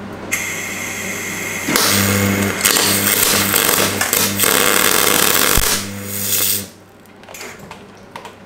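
MIG welding arc crackling with a steady electrical hum as a nut is welded onto a snapped exhaust-manifold stud in the engine's cylinder head. It gets louder about two seconds in and cuts off sharply after about six and a half seconds.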